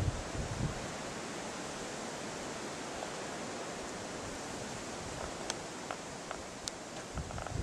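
Wind blowing on the microphone: a steady hiss with gusty low rumbles near the start, and a few faint sharp clicks near the end.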